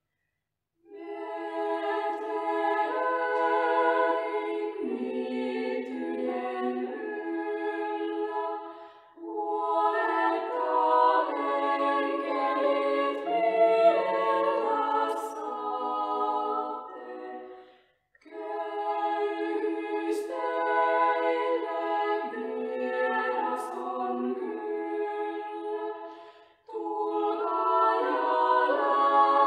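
Small ensemble of women's voices singing a cappella in close harmony, in phrases separated by short breaths.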